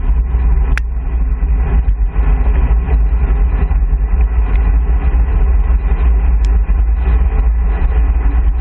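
Wind noise from a road bike descending at speed, a loud, steady rumbling rush over the camera microphone mixed with tyre noise on asphalt. Two brief clicks, about a second in and near the end.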